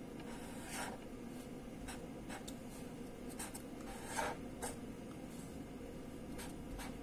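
Pen scratching on paper, drawing shapes in short strokes, quiet, with a few louder strokes, over a faint steady room hum.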